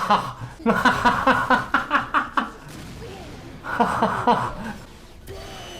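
A voice from the anime's soundtrack laughing in quick pulses for about two seconds, then another short stretch of voice about a second later.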